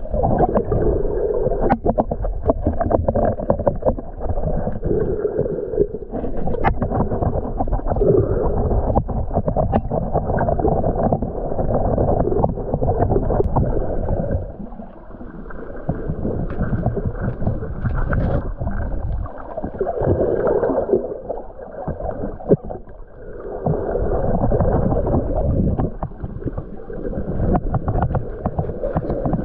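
Muffled underwater sound of snorkeling: water rushing and gurgling past a waterproof camera housing, swelling and fading every few seconds, with scattered small clicks.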